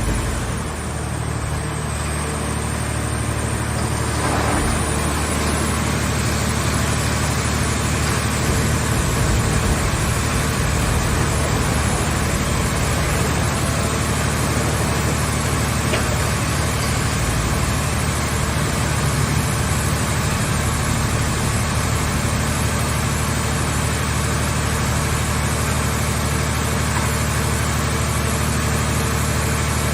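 Car-shell baler's engine-driven power unit running steadily with a low, even drone.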